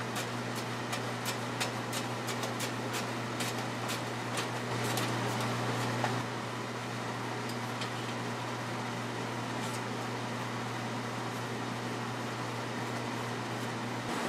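Hand screwdriver working screws into a wing bulkhead: a quick, irregular run of small clicks and ticks over the first five seconds or so, then only a few more, over a steady low hum.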